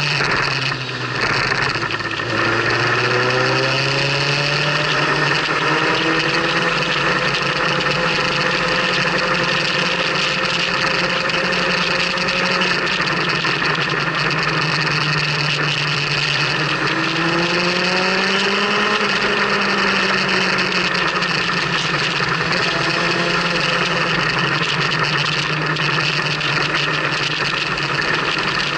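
Motorcycle engine running at speed, its pitch dropping briefly about a second in, then climbing, and rising and falling a few more times with the throttle, under a steady rush of wind noise.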